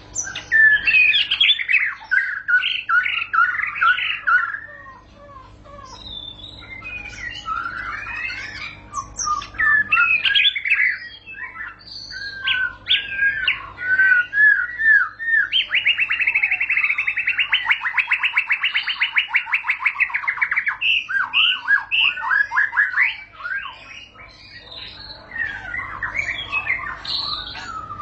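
White-rumped shama singing a long, almost unbroken song of varied whistled phrases, the continuous 'rolling' song that shama keepers prize. A little past the middle it holds a fast, even trill for about five seconds.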